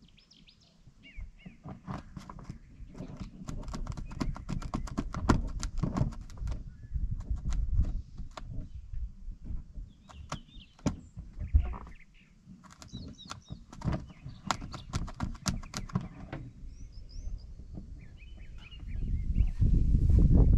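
Irregular clicks, taps and knocks of hands working a wire up through a drilled hole underneath a camper, with birds chirping at times. A louder low rumble builds near the end.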